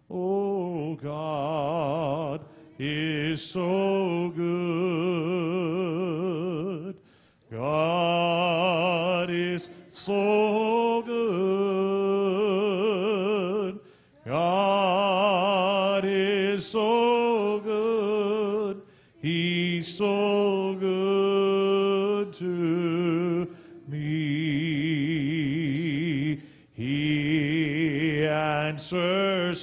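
A man singing slow, drawn-out phrases with a wavering vibrato into a handheld microphone, with short breaks between lines.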